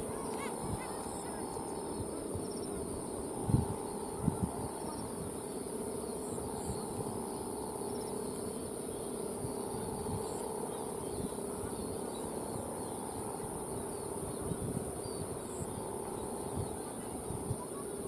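Kite hummer (bebean) droning steadily in the wind, a constant buzzing hum with a second tone an octave above. Two short low thumps come about three and a half and four seconds in.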